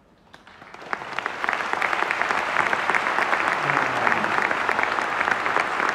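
Audience applause: a few scattered claps that swell within about a second and a half into dense, steady clapping from a large crowd.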